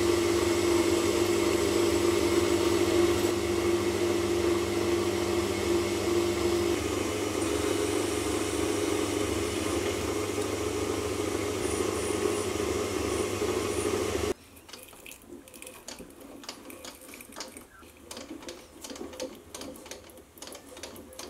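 Metal lathe running steadily while turning a nylon hammer face, a constant motor hum with a held mid-pitched tone. About 14 seconds in it stops abruptly, leaving a much quieter stretch of light clicks and taps.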